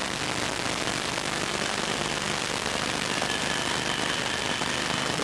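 Steady, even hiss with no rhythm, with two faint high steady tones coming in about two seconds in.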